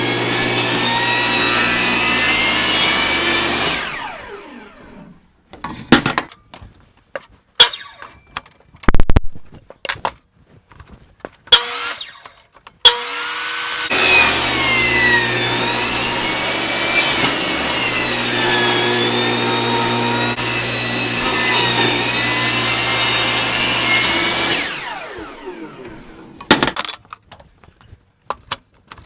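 Table saw running and cutting through a log, its whine dipping and wavering as the blade takes the load. It winds down twice, about four seconds in and again near the end. Between the two cuts come scattered knocks and clunks as the log is handled.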